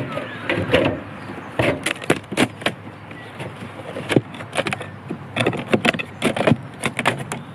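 Wooden beehive being opened with a hive tool: scraping and prying at the lid and boxes, with irregular clusters of sharp knocks and clunks as the lid comes off and the top box is wrenched loose and lifted.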